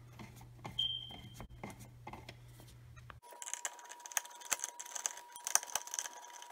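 Screwdriver turning out the metal mounting screws of a wall outlet, with small irregular clicks, ticks and scrapes of metal on metal. From about three seconds in, a faint steady high tone sits under the clicks.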